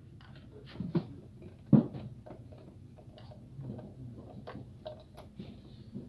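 A handful of light clicks and knocks from wires, connectors and small parts being handled during refrigerator wiring work, the loudest a little under two seconds in.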